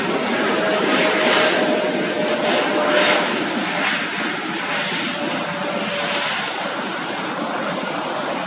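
Airliner engines running loudly as the aircraft passes. A steady whine in the roar sinks slightly in pitch and fades out about six seconds in.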